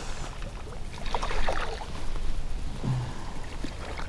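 Water splashing as a hooked largemouth bass thrashes at the surface and is lifted in, with a burst of splashes about a second in. Water is sloshing around the float tube.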